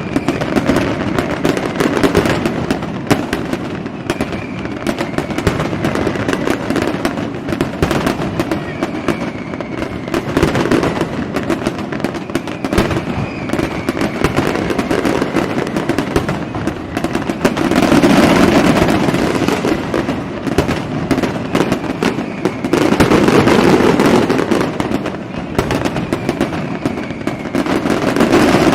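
A fireworks display: a dense, continuous barrage of bangs, pops and crackles, with a few faint whistles gliding through. It swells louder about two-thirds of the way in and again a few seconds later.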